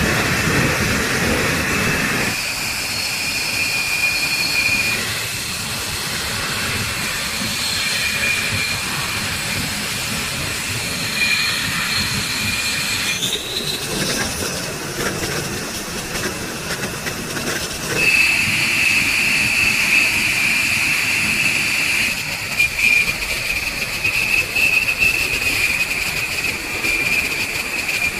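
Steady high jet-turbine whine over a constant rushing hiss; the whine wavers in strength and grows louder about two-thirds of the way through.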